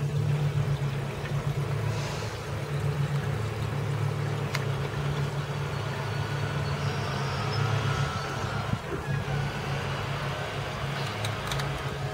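Steady low engine drone from landscapers' power equipment running without a break. A few light clicks near the end as the hook latch on a wire-mesh door is handled.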